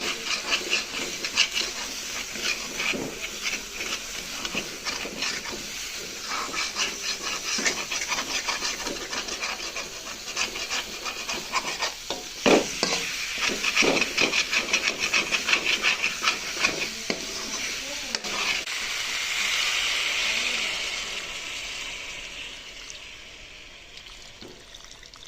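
Chicken curry sizzling and frying in a pan while it is stirred, with a spatula scraping the pan and one louder knock partway through. Later the crackle turns into a steadier hiss that fades away toward the end.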